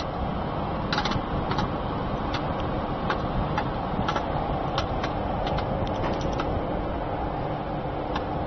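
Popcorn vending machine running with a steady mechanical hum while kernels pop inside it, giving irregular sharp pops about once or twice a second.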